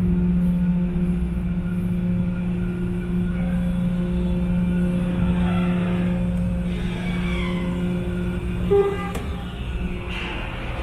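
Engines of the ferry "Shimashima Meon" running with a steady low hum, with a brief knock about nine seconds in.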